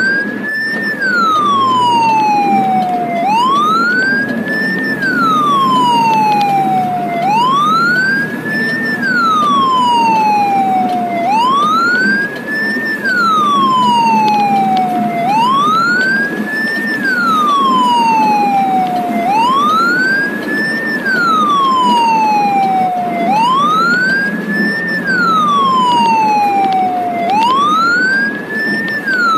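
Ambulance siren on wail, heard from inside the cab. Each cycle rises quickly and falls slowly, repeating about every four seconds, over a steady hum of engine and road noise.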